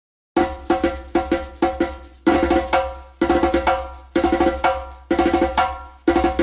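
Background music with a steady percussive beat: short, pitched, struck notes over a low bass, repeating about once a second. It starts about half a second in, after dead silence.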